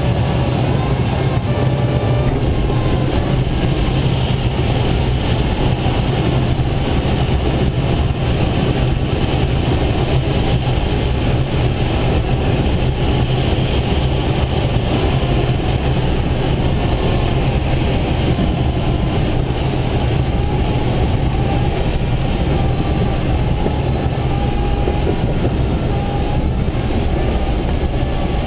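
Steady rush of airflow noise inside a glider cockpit in flight, with a constant low hum underneath and no break throughout.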